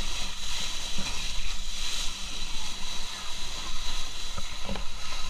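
Boat engine running steadily, with a constant hiss of rushing water.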